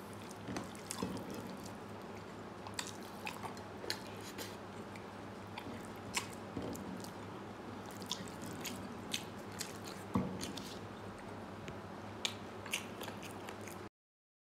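Close-miked chewing and wet mouth smacks of a person eating rice and dal by hand, with many short clicks scattered throughout. It cuts off abruptly near the end.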